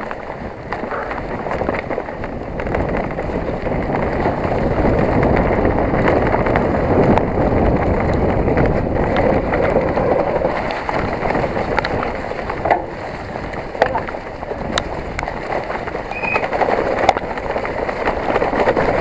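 Mountain bike (Specialized Enduro 29) descending a rough trail at speed: a continuous rush of wind on the microphone and tyre noise, with scattered sharp knocks and rattles from the bike in the second half.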